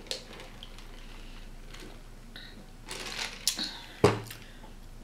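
Light clicks and rustles from a plastic drink cup being handled after a sip through a straw, then a single sharp knock about four seconds in as the cup is set down on the table.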